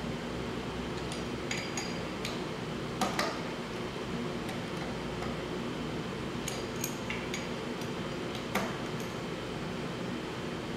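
Light metallic clicks and clinks of bolts being hand-threaded into the oil pump and engine case, with a few louder taps about three seconds in and again past eight seconds, over a steady low hum.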